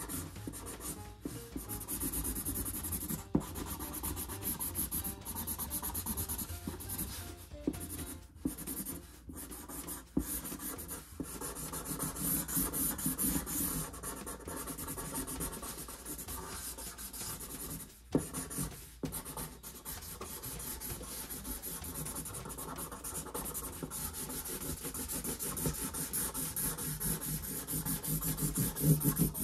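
Felt-tip Sharpie marker scratching back and forth across a cardboard box, steady rapid strokes of colouring in, with a few brief pauses.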